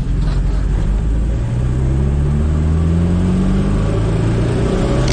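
Turbocharged Chevrolet Chevette's four-cylinder engine running, its turbo intake open on a bare hose with no air filter. The engine speed steps up about a second and a half in, then climbs slowly.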